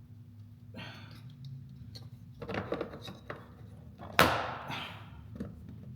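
Hands working plastic interior trim and a light housing back into place inside a car, with soft knocks and one sharp knock about four seconds in.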